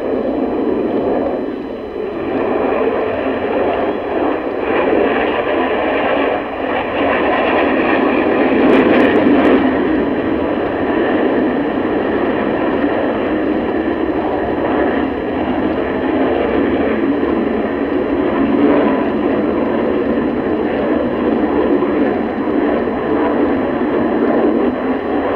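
Twin turbofan engines of a Sukhoi Su-30 fighter jet, a continuous rushing noise that swells somewhat about eight seconds in.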